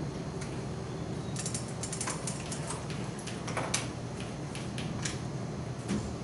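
Chalk on a blackboard while writing: irregular taps and clicks over a steady low room hum.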